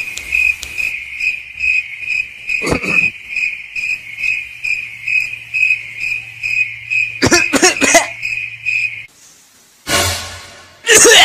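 Cricket chirping as a sound effect: a steady run of short high chirps, about two or three a second, that cuts off suddenly about nine seconds in. Two brief lower sounds come in over it, near three seconds and around seven to eight seconds.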